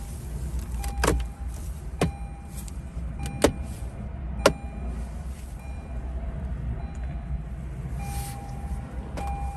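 Plastic dashboard trim panel clips snapping free as the panel is pried off: four sharp clicks spaced about a second apart in the first half, over a low steady rumble.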